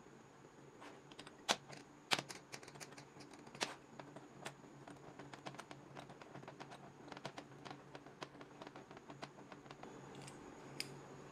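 Steel parts of a small homemade clamp clicking and knocking together as they are handled and fitted: an irregular string of sharp light clicks, the loudest in the first few seconds.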